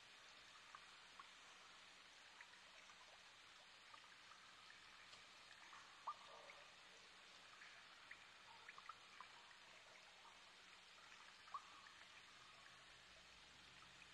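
Near silence: a faint steady hiss with a few scattered faint ticks.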